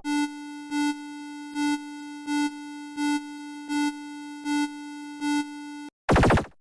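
Electronic emergency-alert alarm tone: a steady buzzing tone that swells louder about every three quarters of a second, eight pulses in all, then cuts off. Near the end a loud, harsh, noisy burst takes over.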